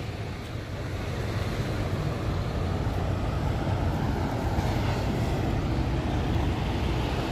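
Steady low rumble of wind buffeting a phone microphone, mixed with the drone of semi-truck engines in a truck-stop lot. It gets a little louder after about a second.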